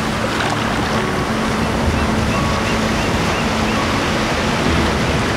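Ocean surf washing in over the sand and around the legs in shallow water: a steady rush of breaking waves.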